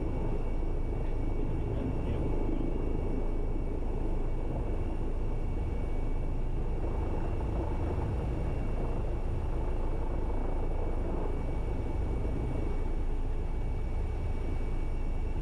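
Airbus EC135 twin-turbine helicopter heard from inside the cockpit as it lifts off and climbs in a vertical takeoff: steady rotor and engine noise with a deep rumble and a thin, steady high whine above it.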